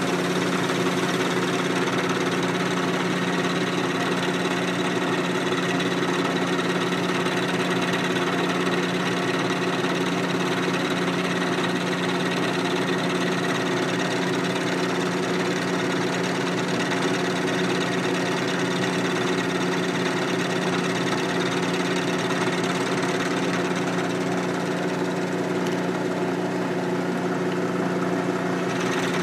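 Milling machine running steadily while milling a 45° angle on a part: a constant motor hum with a hiss above it. The hiss thins out a few seconds before the end.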